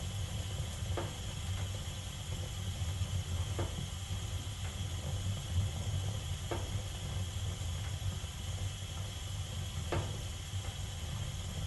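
Gas furnace burners firing with a steady low rumble and hiss while the heat exchanger warms up and the blower is not yet running, with a few faint ticks spaced unevenly through it.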